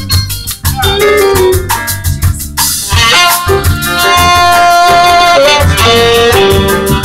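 Live jazz band: saxophone over a drum kit, with a cymbal crash about two and a half seconds in, after which the saxophone holds long melody notes.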